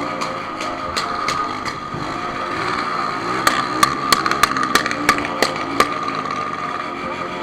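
Honda CB1000 inline-four motorcycle engine running. A cluster of sharp ticks comes about three and a half to six seconds in, the noise the owner is showing.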